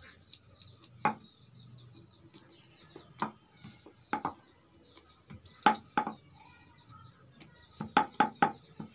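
Wooden rolling pin knocking against a wooden rolling board while rolling out nimki dough: scattered sharp wooden clacks, then a quick run of four near the end.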